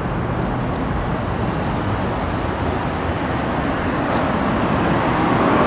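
Steady street traffic noise, a continuous low rumble with an even hiss above it.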